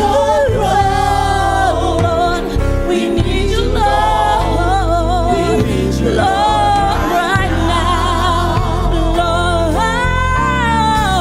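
Gospel music: a lead voice holding long notes with a wide vibrato over sustained backing chords.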